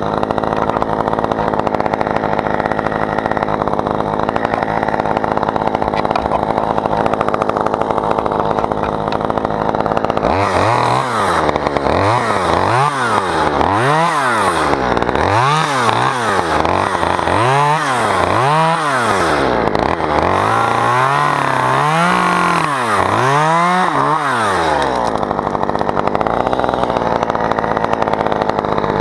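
Chainsaw engine running at a steady speed for about ten seconds, then revving up and down repeatedly, roughly once every second and a half, with another rev near the end.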